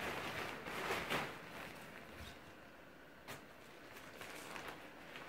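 Thin nylon fabric of an inflatable Christmas moose rustling and crinkling as it fills with air and is pulled into shape by hand, loudest in the first second or so, then softer with a few light taps.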